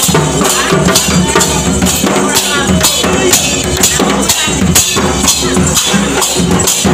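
Music with a steady beat of drums and jingling percussion.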